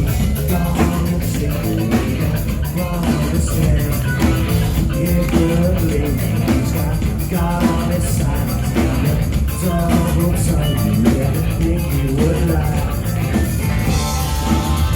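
Rock music: a drum kit and guitar play a steady, loud groove.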